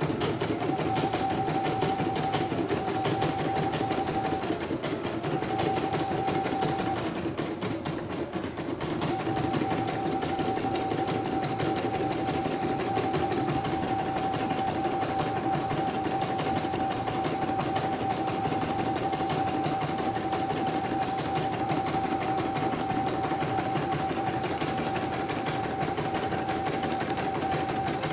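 CNY E900 computerised embroidery machine stitching a design: rapid, even needle strokes with a steady whine that drops out twice in the first nine seconds.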